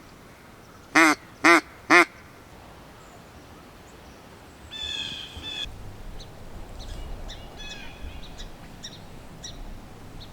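Hunter's mallard duck call blown in a quick run of three loud quacks about half a second apart. About halfway through comes a brief high-pitched call, followed by faint scattered bird chirps.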